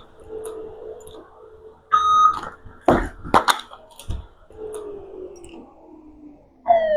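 A timer beep about two seconds in, then a quick run of sharp plastic-and-metal clicks and knocks as an M4-style airsoft replica's tight magazine is released, tugged free and dropped, and a fresh magazine is seated. A falling tone starts near the end.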